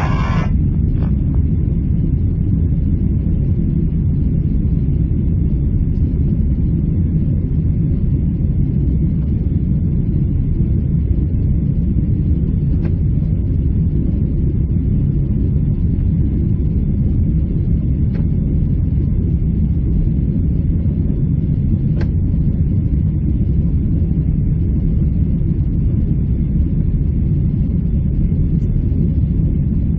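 Steady, loud, low rumble of a Boeing 777-300's jet engines and airflow heard inside the rear cabin during takeoff.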